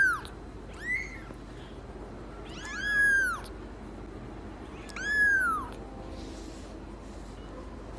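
Kitten mewing: four short, high-pitched meows, each rising and then falling in pitch. They come right at the start, about a second in, around three seconds and around five seconds.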